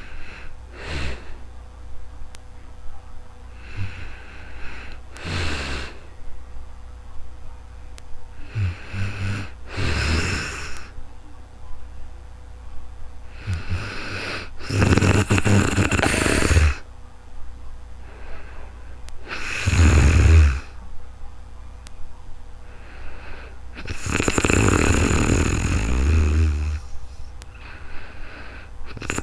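A woman snoring in her sleep: slow, regular snoring breaths about every five seconds, the longest and loudest around halfway and near the end.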